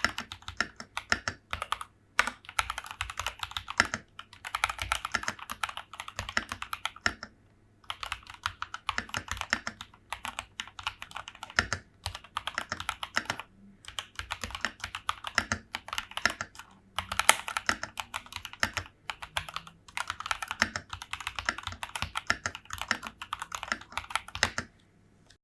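Typing on a CIY Tester 68 mechanical keyboard with unlubed KB3 DVA switches, lubed stabilizers and Bilibili keycaps: fast runs of key clacks broken by short pauses. The typing stops just before the end.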